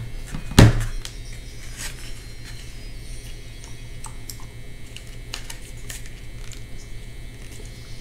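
Handling noise as hands work a small device: one thump about half a second in, then scattered light clicks and taps over a steady low hum.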